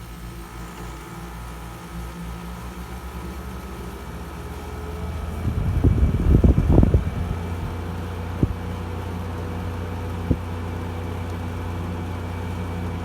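Frigidaire 5000 BTU window air conditioner running on low cool: a steady hum with a low throbbing that quickens over the first few seconds, a loud rattle about six seconds in, then an even hum broken by two single clicks.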